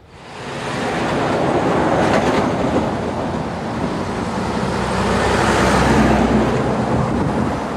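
A truck and cars passing close on a road, mixed with an electric freight train approaching on the embankment behind. The sound starts abruptly and swells to its loudest about six seconds in.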